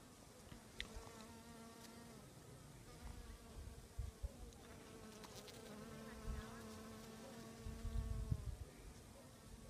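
A bee buzzing in flight, a steady hum that fades in and out, clearest from about three seconds in. A few low rumbles come through, the loudest shortly before the end.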